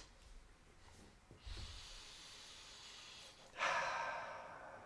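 A man breathing audibly: a long faint breath in, then a louder breath out about three and a half seconds in that fades away, like a sigh.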